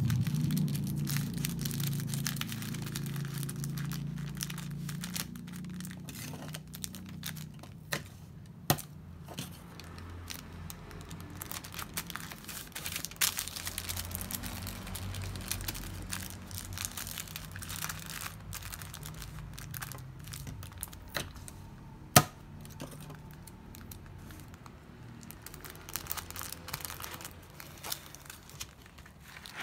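Paper rustling and crinkling as a sheet of white paper is folded and creased by hand, with a few sharp clicks scattered through it, the loudest about nine seconds in and again past twenty seconds.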